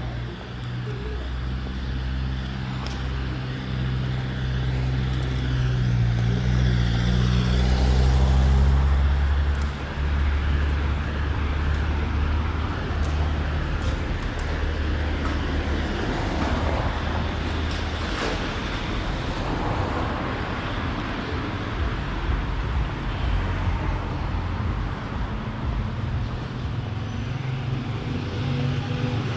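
City street traffic going by. A vehicle engine hums steadily close by for about the first ten seconds, loudest about eight seconds in.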